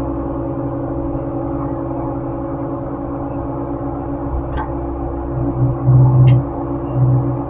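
Excavator's diesel engine running steadily, heard from inside the operator's cab, with a deeper hum that swells louder two or three times near the end. A couple of short clicks come in the second half.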